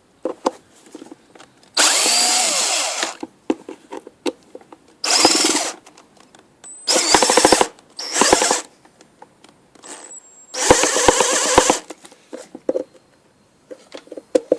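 Cordless electric screwdriver driving screws out of a vacuum cleaner's casing in five short runs, each about a second long, with small clicks of handling in between.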